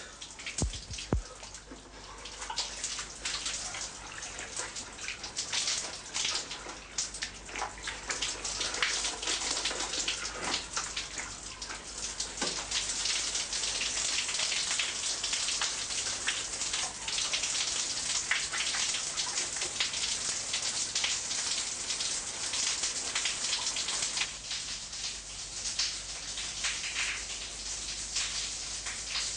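Steady rain falling, made of many small drops, building up over the first few seconds and then holding.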